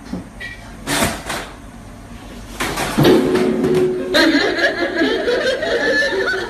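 Sharp knocks and a clatter as a man falls to the floor when his chair is pulled out from under him, then a loud held tone and laughter from about four seconds in.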